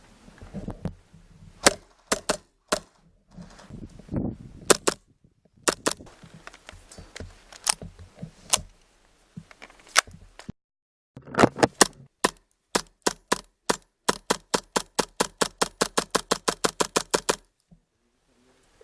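Airsoft guns firing: scattered single shots, then a rapid run of about seven shots a second that stops suddenly.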